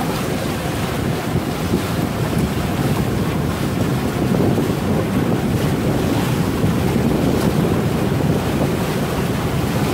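Wind buffeting the microphone over the steady rush and slap of choppy water along the hull of a small outrigger boat under way.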